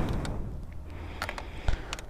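A few light clicks and a heavier knock about three-quarters of the way through as parts of the motorcycle's headlight and turn-signal housing are handled and pulled out.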